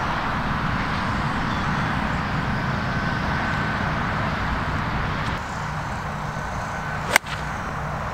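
A golf iron striking the ball once, a single sharp crack about seven seconds in, over a steady low background rumble.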